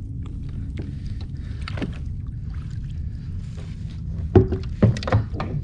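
Steady low rumble of wind and water around a small plastic fishing kayak, with a few sharp knocks of handling against the hull about four to five seconds in as a fish is brought aboard.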